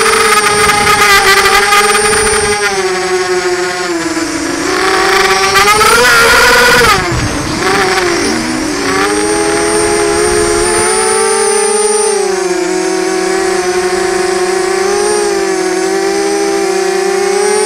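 FPV quadcopter's electric motors and propellers whining steadily, loud; the pitch climbs to its loudest about six seconds in as the throttle goes up, drops sharply about a second later, then steadies again.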